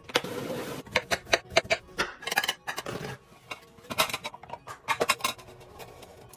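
An irregular run of sharp clicks and light knocks, like items being handled and set down, with a short burst of hiss near the start.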